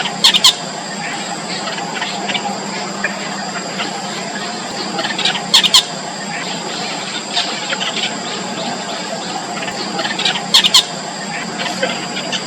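Nestling birds begging with sharp, high squeaky cheeps that come in short clusters, three times about five seconds apart, with fainter chirps between, over a steady high-pitched hum.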